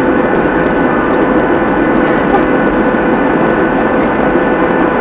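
Cabin noise inside a Boeing 737-800 descending on approach to landing: a steady rush of airflow and CFM56 turbofan engines, with a steady whine over it.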